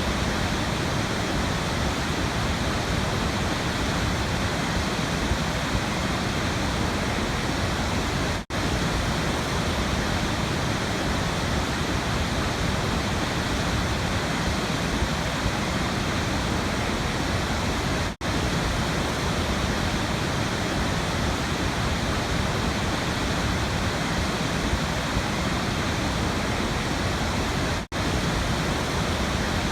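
Waterfall: a steady, even rush of falling water. It cuts out for a split second three times, about every ten seconds.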